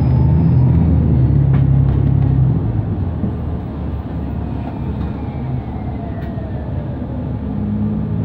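Ride noise of a New Flyer XDE60 diesel-electric hybrid articulated bus under way, heard from inside: the engine's low hum is louder for the first couple of seconds, then drops back. A faint electric drive whine falls in pitch through the middle.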